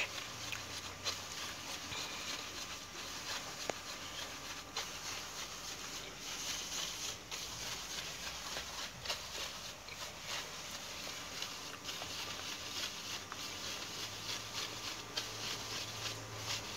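Wheat flour being rubbed by hand through a plastic-rimmed mesh sieve: a quiet, irregular scratching rustle with small ticks.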